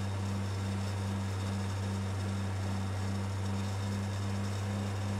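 Steady low machine hum with a slightly higher tone pulsing evenly, about two to three times a second, over a faint hiss.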